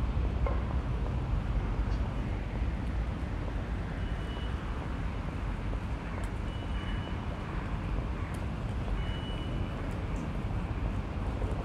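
Town ambience: a steady rumble of background road traffic. Three short, high, steady notes sound briefly about four, six and a half, and nine seconds in.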